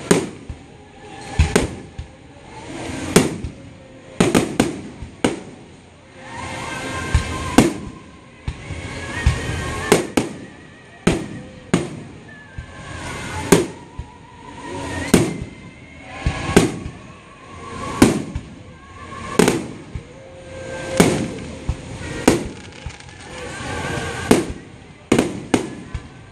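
Fireworks display: aerial shells bursting in sharp booms about every one and a half seconds, with a quicker cluster of bangs near the end.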